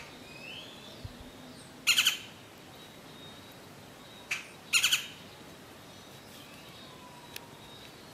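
Great-tailed grackle giving two loud, harsh rattling calls, each a quick run of clacks, about two seconds in and again nearly three seconds later, with a short note just before the second. Faint thin whistles sound in between.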